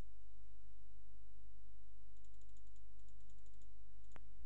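Steady low hum, with a quick run of faint computer clicks about two seconds in and a single sharper click near the end.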